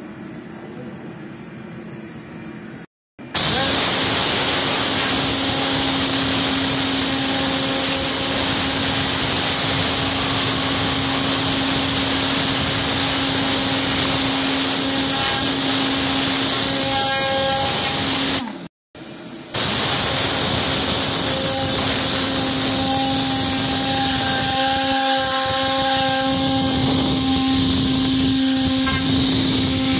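Tornador air-powered cleaning gun blasting air and spray at a carpet floor mat: a loud, steady hiss with a steady hum underneath. It starts about three seconds in after a quieter stretch and drops out briefly past the halfway point.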